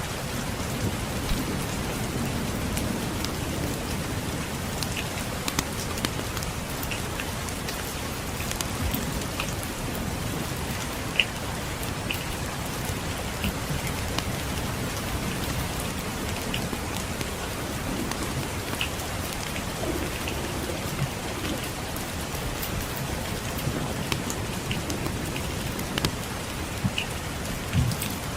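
Steady rain mixed with a wood fire crackling, its sharp pops scattered irregularly throughout, the loudest about eleven seconds in. Underneath runs a low rumble of distant thunder.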